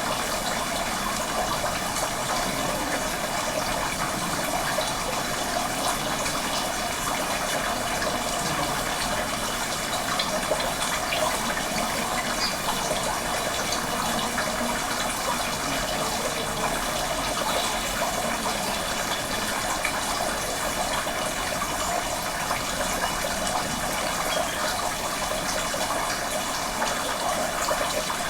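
Field recording of steady running water, an even rushing noise that holds level throughout.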